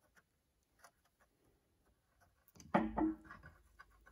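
Water heater anode rod being pulled up out of the tank port: a short scrape about two and a half seconds in, followed by a few light clicks.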